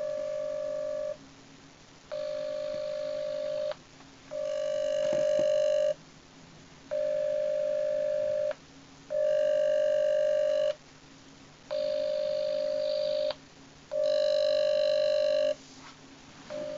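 Phone on speakerphone playing the ringing tone of an outgoing call: a steady ring tone repeating about eight times, each about a second and a half long with short pauses between.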